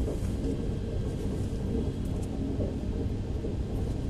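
Steady low background rumble, with no distinct event standing out.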